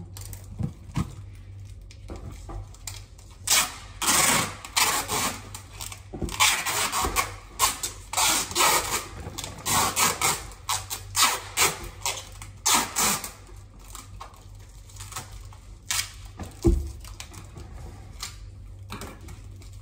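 Goods and packaging being handled: irregular rustling, crinkling and light clacking, dense from a few seconds in until about 13 seconds, then sparse, with a single low thump near the end.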